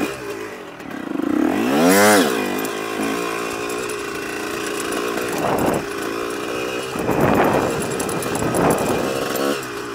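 Honda CR125 two-stroke motocross engine revving under the rider. One strong rev climbs and falls about two seconds in, followed by several smaller throttle swells.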